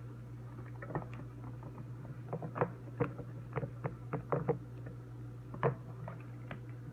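Homemade slime being stirred in a container: irregular soft taps and wet clicks of the utensil working the sticky mixture, over a steady low hum.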